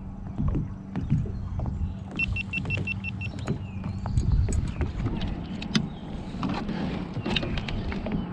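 Clicks and knocks of fishing gear being handled in a plastic kayak, over a steady low hum, with a quick run of about six short high-pitched electronic beeps about two seconds in.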